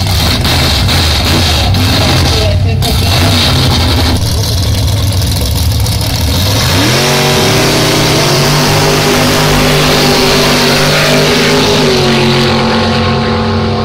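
Two drag-racing cars, a 1955 Chevrolet Bel Air and a custom car, running loudly at the start line, then launching at wide-open throttle about seven seconds in. The engine note rises sharply and stays high as they run down the strip.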